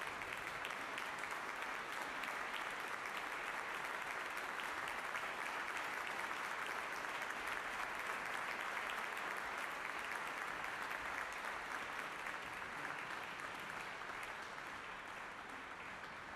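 Concert hall audience applauding: dense, steady clapping from a large crowd that eases off slightly near the end.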